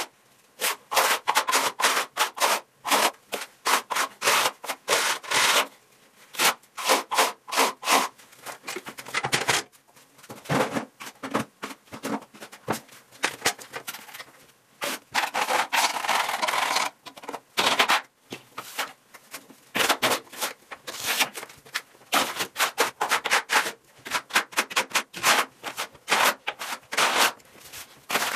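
Smooth steel float spreading a lime-based skim coat over a wall: a steady run of short, quick scraping strokes, with a longer drawn-out stretch of scraping about halfway through.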